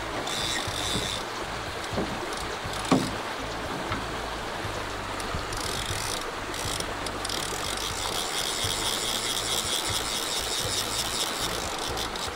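Old fly reel's click-and-pawl drag ratcheting as a hooked brook trout pulls line off it: rapid, even clicking, briefly near the start and steadier and stronger from about six seconds in, over a steady low rumble.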